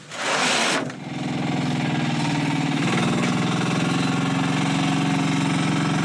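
A short burst of rushing noise at the start, then a small three-wheeled cargo vehicle's engine running steadily at an even pitch as it drives off.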